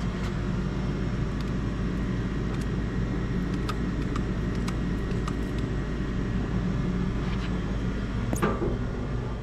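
Steady low machine hum, with a few faint ticks over it.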